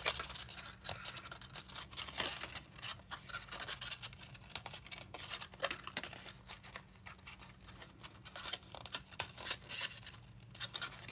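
Stiff cardstock being folded and creased by hand along score lines: an irregular run of small crackles, rustles and scratches of paper.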